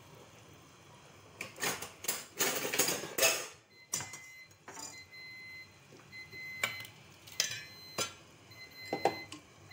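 A utensil stirring broccoli florets in a stainless steel saucepan of boiling water. A stretch of scraping and stirring comes about one and a half seconds in, then scattered clinks of metal against the pot.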